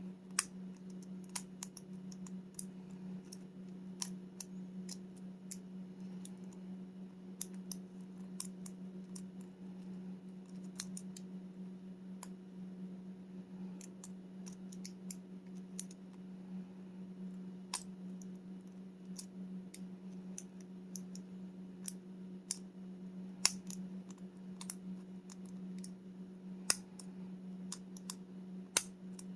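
Lock pick and tension wrench working the pin tumblers of a rim cylinder lock: irregular light metallic clicks and ticks, with a few sharper clicks near the end. A steady low hum runs underneath.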